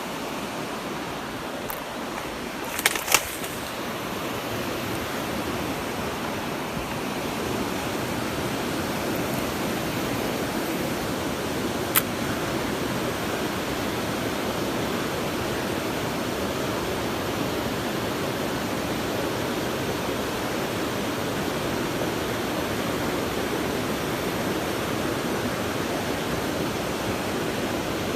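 Steady rush of stream water, with a couple of sharp clicks about three seconds in and a single click near the middle.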